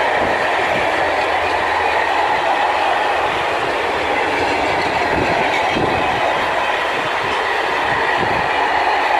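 Container wagons of a freight train rolling past close by: a steady loud rolling rattle with irregular clacks and thumps of the wheels over the rail joints.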